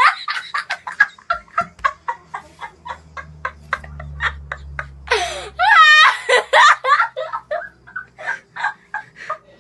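A boy laughing hard: a long run of short, rapid laugh bursts, with a loud high-pitched squeal of laughter about five seconds in.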